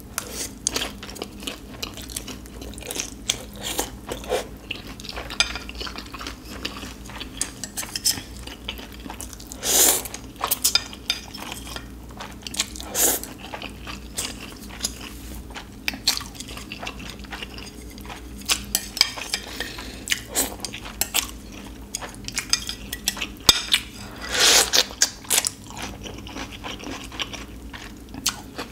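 Close-miked eating: chopsticks clicking against bowls and plates, chewing with some crunching, and two long, loud slurps of ramen noodles, one about ten seconds in and one near twenty-five seconds in.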